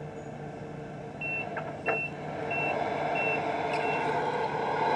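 Reverse-warning beeper on a Tamiya Scania R620 RC truck sounding as the truck backs up: five short, high beeps, about one every two-thirds of a second. They play over a steady running noise that gets louder near the end, with a couple of faint clicks in between.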